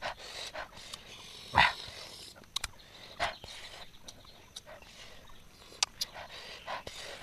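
Scattered mouth noises from two men eating sour fruit with chili salt: sharp intakes of breath, lip smacks and short throaty sounds. One louder one comes about a second and a half in.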